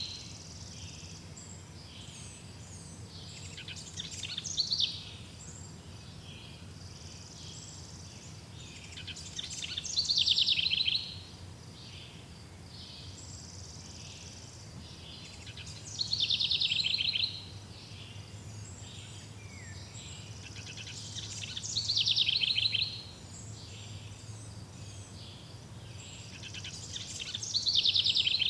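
A songbird repeating the same short, fast trilled song phrase about every six seconds, five times, over a steady background of faint chirps.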